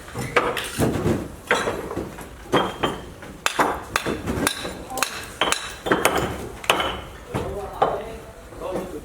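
Repeated sharp hand-tool strikes on a hard surface, roughly two a second and unevenly spaced, several with a short metallic clink, like hammering on the job.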